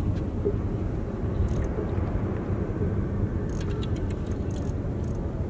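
Steady low rumble of wind buffeting the microphone over open water, with a few faint clicks about a second and a half in and again a few times between three and a half and five seconds in.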